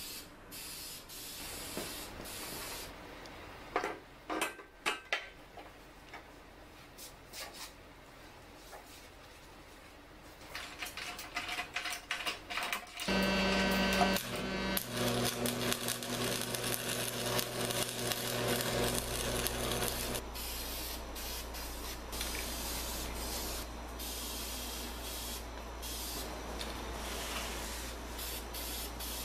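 Metal fabrication work: scattered clanks and knocks of steel parts being handled, then about halfway in a machine starts suddenly with a steady hum and hiss that runs on.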